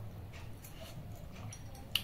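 Faint chewing and mouth sounds of someone eating watered rice by hand, over a low steady hum, with one sharp clink near the end as the hand reaches into a steel plate.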